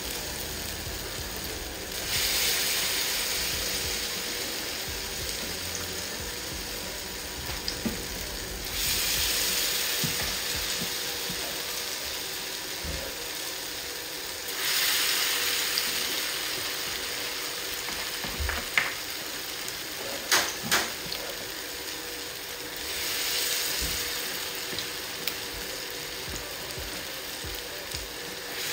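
Akara batter frying in deep hot oil, a steady sizzle that swells loudly four times as fresh spoonfuls of batter go into the oil. A few sharp knocks of a utensil come about two-thirds of the way through.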